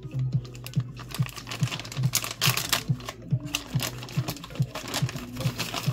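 Background music with a steady low beat, about two and a half beats a second. Short clicks and rustles over it, densest around two to three seconds in.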